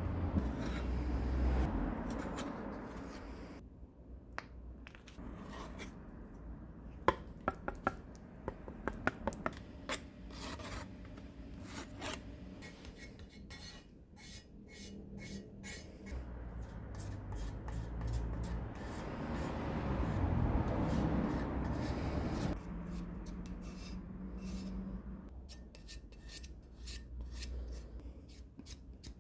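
Hand rubbing and scraping on a part of an old electric planer being restored, in strokes that come and go, with a run of sharp clicks and taps about a third of the way in.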